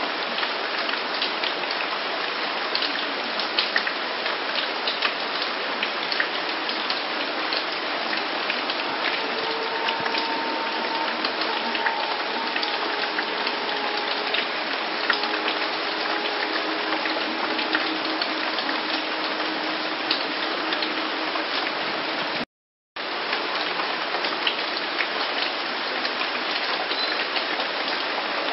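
Steady rain falling, a dense hiss sprinkled with many sharp individual drop ticks. The sound cuts out completely for about half a second roughly three-quarters of the way through, then resumes unchanged.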